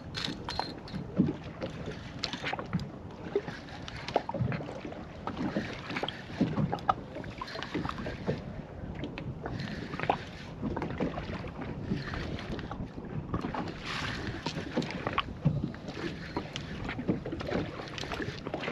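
Water sloshing against the hull of a small fishing boat, with scattered light knocks and clicks coming at irregular moments.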